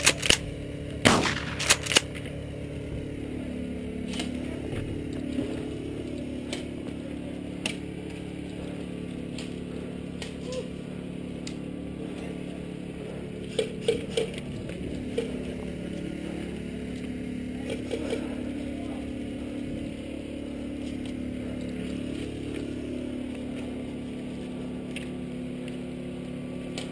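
Airsoft guns firing: a few sharp pops in the first two seconds, then scattered single shots with a short cluster about halfway through, over a steady low hum.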